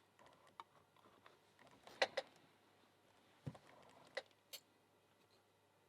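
A few sparse, light clicks of metal tweezers and small lock parts as springs are loaded into a padlock's pin chambers, the loudest a quick pair of clicks about two seconds in.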